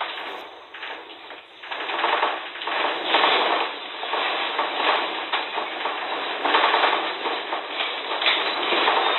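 A room's furniture, fixtures and loose objects rattling and clattering continuously as an earthquake shakes the building. The rattling starts abruptly and grows louder about two seconds in.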